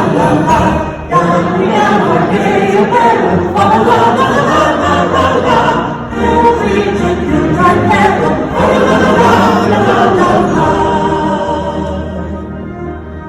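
Theatre audience singing a Christmas carol together as a crowd, with a concert band accompanying, growing quieter over the last couple of seconds.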